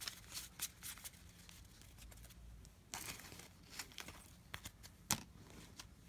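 Trading cards being handled, sorted and stacked on a paper-covered table: faint soft clicks, taps and rustles of card edges, with one sharper tap about five seconds in.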